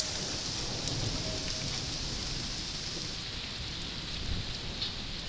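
Steady rain falling on trees and the ground: an even hiss with a few faint scattered drip taps.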